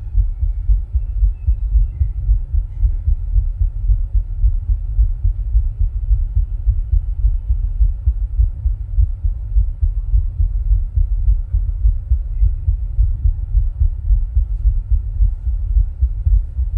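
A person's heartbeat picked up at the chest, a steady rhythm of dull low thumps, recorded during rebreathing from a plastic bag.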